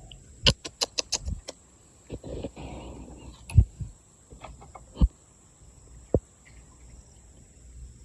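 Scattered sharp clicks and knocks: a quick run of about six close together half a second in, then single knocks every second or so, over faint low background noise.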